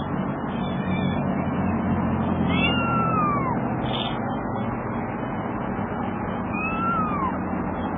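Ginger kitten mewing: two high, thin calls, each rising a little and then falling away, about two and a half seconds in and again near the end, over a steady background rush.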